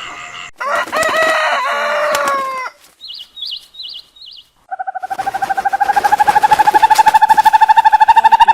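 A rooster crows once, a call of about two seconds that falls in pitch at the end. After a short pause with a few faint high chirps, a loud, steady trill of rapid pulses begins about five seconds in and grows louder.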